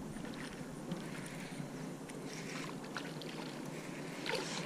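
A hooked bass splashing and thrashing at the water's surface as it is fought on rod and line, with the loudest splashing near the end.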